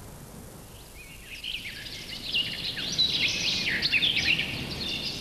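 Small birds twittering: many short, high chirps crowding together, starting about a second and a half in.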